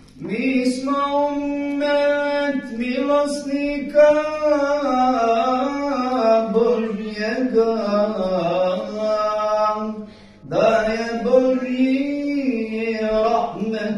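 A man's solo, unaccompanied religious chanting, as at a mevlud recitation, with long ornamented notes that waver and bend up and down. There is a short break for breath about ten seconds in.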